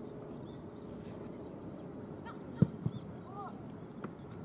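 A soccer ball kicked with one sharp thump about halfway through, followed by a smaller knock, over steady open-field ambience. Faint distant shouts from players follow shortly after.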